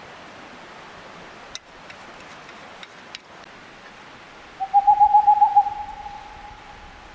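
An owl gives one hooting call about halfway through. It quavers rapidly for about a second, then trails off into a held, fading note. It sounds over the steady rush of a mountain stream, with a few faint sharp snaps before it.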